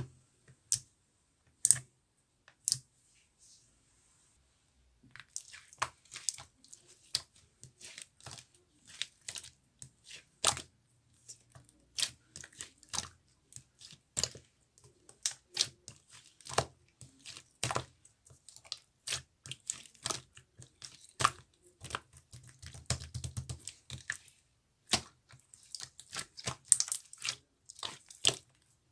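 Silver-pearl marbled slime pressed and worked by hand, giving irregular crackling pops and clicks. They are sparse for the first few seconds and come thick and fast from about five seconds in.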